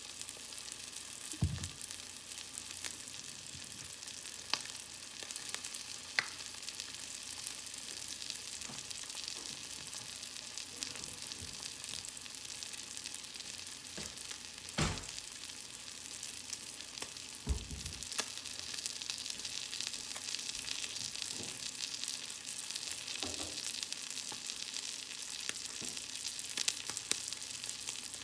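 Tilapia fillet sizzling steadily as it pan-fries in hot oil. A few dull knocks come through the sizzle, the loudest about fifteen seconds in.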